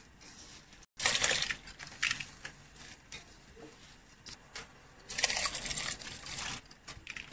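Handfuls of washed raw rice dropped into a large pot of boiling salted water, splashing as they go in, the start of parboiling rice for biryani. There is a splash about a second in and a longer run of splashing about five seconds in.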